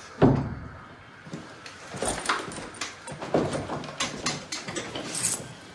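A door shuts with a thud, followed by a string of footsteps and small knocks and rustles as someone moves about.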